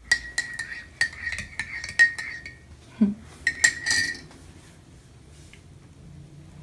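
A metal spoon stirring in a ceramic mug, clinking repeatedly against the side with a short ringing note. The clinks stop briefly, then come in a second quick run about three and a half seconds in, then stop.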